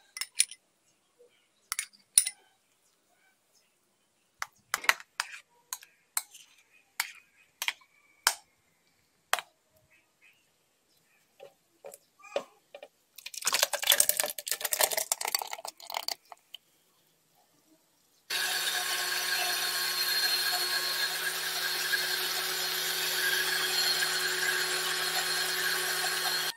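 Scattered clinks and taps of glassware, then a denser rattle as the banana and yogurt mix is tipped into a blender jar about 13 seconds in. About 18 seconds in, an electric countertop blender starts and runs steadily, grinding bananas, yogurt, honey and garlic into a smoothie.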